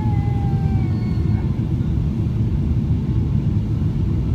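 Steady low rumble inside the cabin of a Boeing 777-300ER descending on approach with flaps extended: the noise of its GE90-115B engines and of the airflow around the fuselage and wing.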